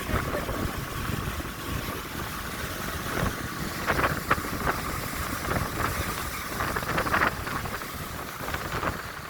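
Speedboat running on the water, its engine noise mixed with wind buffeting the microphone, with a few short sharp bursts of noise about four and seven seconds in.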